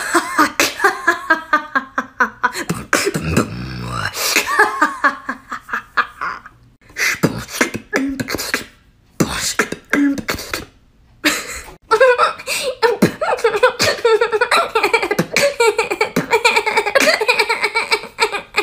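A woman beatboxing solo: quick mouth-made drum clicks and hits, with stretches of sung, pitched vocal sounds between them, the longest melodic stretch in the last third.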